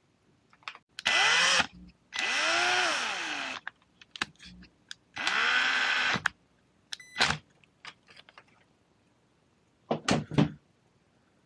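Cordless power drill/driver running in three bursts, its whine rising and falling in pitch as the speed changes, followed by a few short clicks and knocks of small parts.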